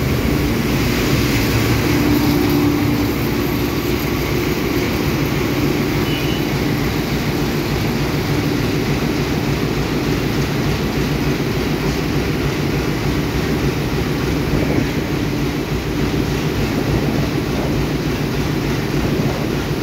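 Sri Lanka Railways W2A diesel locomotive engine running with a steady low drone.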